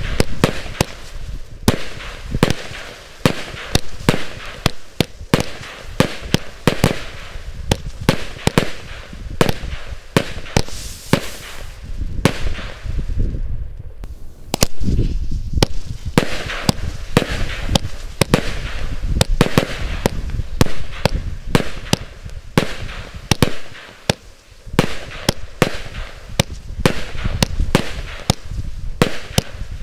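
Category 2 firework cakes firing shot after shot, a sharp bang every half-second to second as each shell bursts. There is a short lull about halfway through, then the firing resumes.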